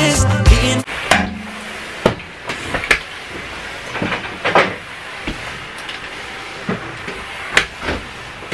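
Background music ends about a second in; then a corded steam mop runs with a steady hiss, pushed across a bathroom floor, with a few sharp knocks as the mop is moved about.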